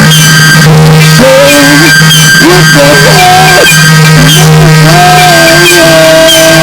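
Loud, heavily compressed lo-fi music: a steady low drone under a wavering melody line that slides up and down in pitch.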